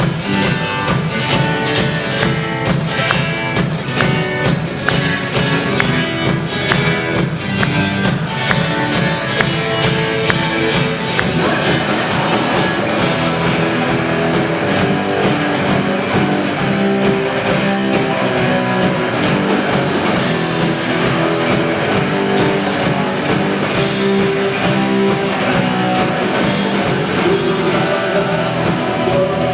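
Rock band playing an instrumental passage live, electric guitar over drums, with a change in the arrangement about a third of the way in.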